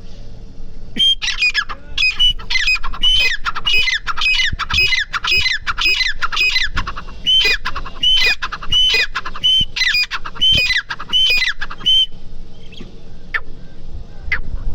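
Female grey francolin (teetar) calling: a fast, even run of repeated sweeping notes, about two a second, that stops about a second before the end, followed by a few faint clicks.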